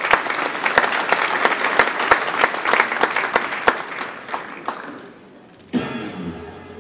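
Theatre audience applauding, many hands clapping, dying away after about five seconds. Near the end, show music starts abruptly.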